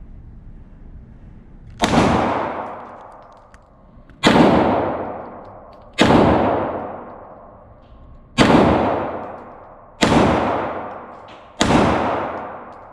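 Handgun firing six single shots at a slow, uneven pace, about two seconds apart, each sharp crack trailing off in a long echoing decay.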